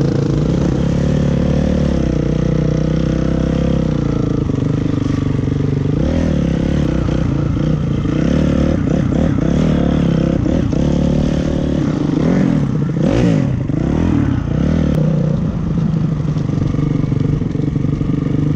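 Dirt bike engine running as the bike is ridden along a snowy track, heard close up from the rider's own bike. The engine note holds fairly steady at first, then rises and falls repeatedly with the throttle from about a third of the way in.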